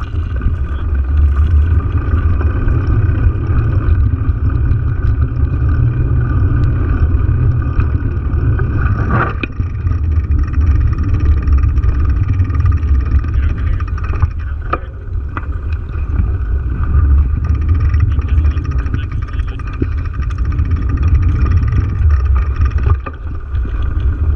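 Wind buffeting the microphone of an action camera on a moving bicycle: a loud, steady low rumble. A few sharp knocks come through, the loudest about nine seconds in and two more around fourteen to fifteen seconds.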